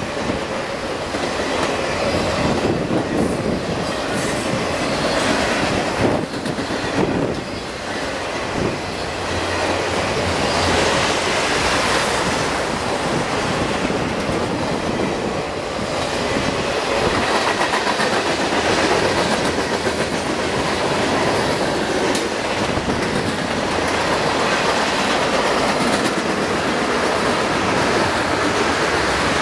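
Freight train cars rolling past: a steady, loud rumble of steel wheels on the rails with clickety-clack.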